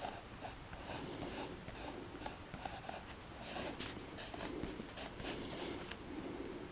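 Pencil drawing on paper: quick, irregular scratching strokes, faint.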